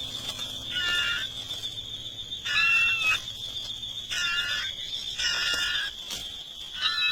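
A bird calls over and over, a short call with several pitches about every one and a half seconds, over a steady high whine.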